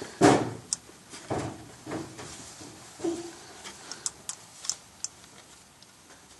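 Handling noise: a few soft knocks and rustles, then scattered sharp little clicks at irregular intervals.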